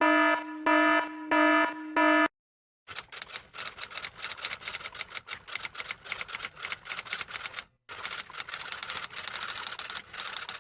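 Four short electronic beeps. After a brief silence comes a long run of rapid, irregular clicking like fast typing on keys, with a short break partway through.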